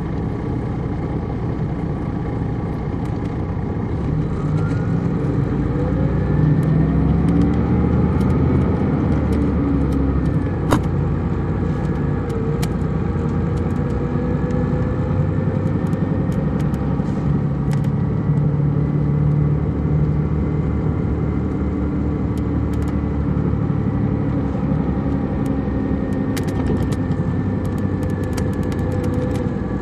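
Detroit Diesel Series 60 engine of a 2002 MCI D4000 coach heard from inside the cabin, getting louder and rising in pitch from about four seconds in as the bus pulls away. It then runs on steadily with a whine that rises slowly, a single sharp click about eleven seconds in and a few light clicks near the end.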